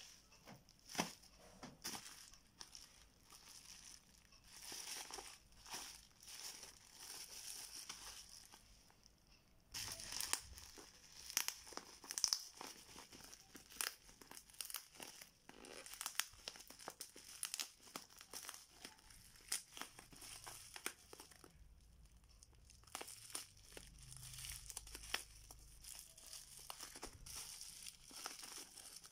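Plastic bubble wrap crinkling and crackling as hands handle and pull it open, with irregular sharp clicks and some tearing.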